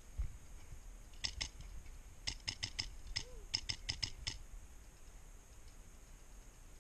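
Airsoft rifle firing quick semi-automatic shots: three strings of sharp clicks, two, then four, then about seven in a row. A low thump just before the first shots.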